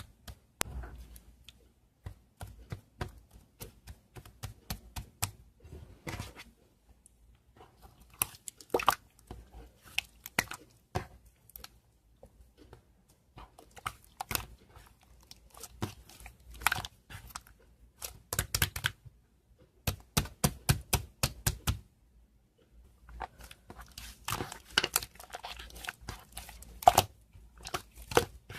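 Irregular clusters of sharp, close-up clicks and crackles, with short pauses between them.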